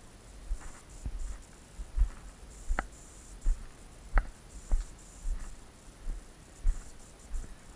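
Walking footsteps, a steady thud about one and a half times a second, with two sharp clicks about three and four seconds in.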